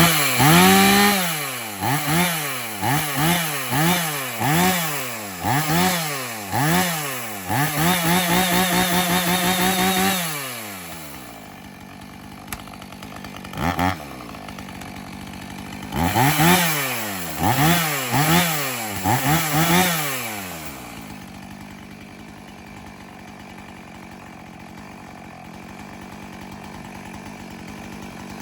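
2007 Husqvarna 450 two-stroke chainsaw, just cold-started on the first pull after long storage, revved in quick throttle blips about once a second, then held at high revs for about two seconds before dropping to a low idle. About halfway through it is blipped again five times, then settles back to idle.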